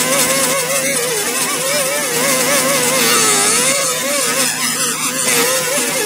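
Handheld air-powered grinder running on a zinc-sprayed repair patch: a steady hiss with a whine that wavers up and down in pitch.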